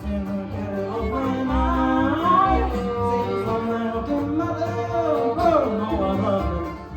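Bluegrass band playing live: a lead melody sliding up and down over plucked guitar and steady low bass notes.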